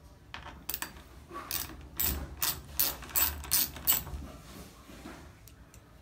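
Socket ratchet with a 1/4-inch socket clicking in a string of short bursts, about two or three a second at its busiest, as it turns out the screws that hold a washing machine's water inlet valve in place. The clicking thins out after about four seconds.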